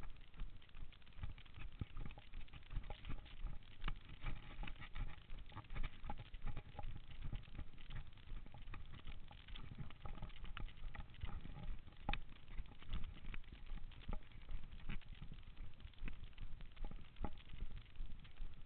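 A runner's footsteps on a dirt and stony forest trail: a quick, uneven rhythm of thuds and crunches, about two to three a second.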